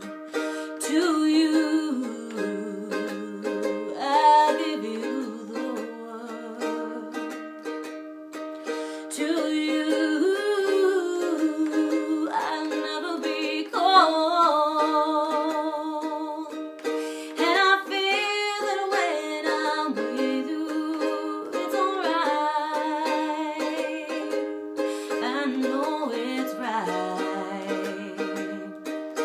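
Music: a slow song accompanied on a plucked string instrument, with a voice holding long notes with vibrato.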